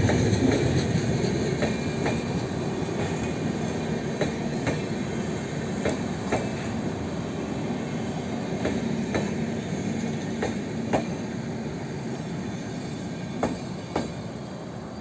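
Passenger coaches of an express train rolling past on the rails: a steady rumble with wheel clicks, often in quick pairs, as the wheels cross rail joints. The rumble slowly grows quieter.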